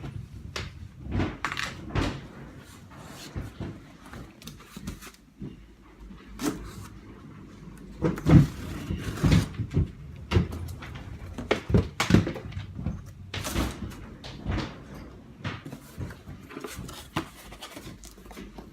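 Cardboard shipping box being opened and its packing handled: irregular knocks, scrapes and rustles, the loudest knocks about eight to twelve seconds in.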